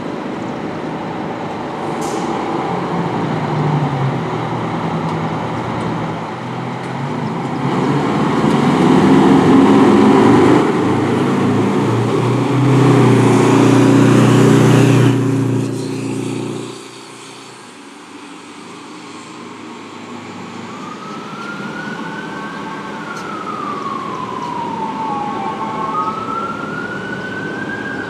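Aerial ladder fire truck's diesel engine pulling out and driving past close by, loudest as it goes by, then dropping away suddenly. In the last few seconds a siren wails, gliding slowly up and down in pitch.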